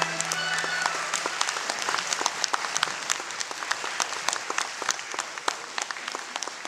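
An audience applauding, the dense clapping thinning out toward the end. In the first second a last held note from a Chinese traditional orchestra dies away under the first claps.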